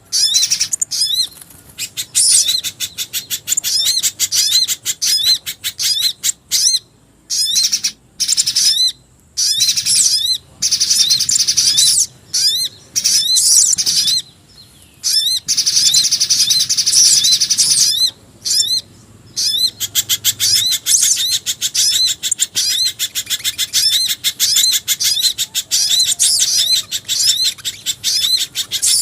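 Recorded small-bird calls in a lure track mixing mountain spiderhunter, sogon and jingjing batu calls: rapid, high-pitched chirps repeated many times a second, coming in bursts with short breaks, then unbroken from about twenty seconds in.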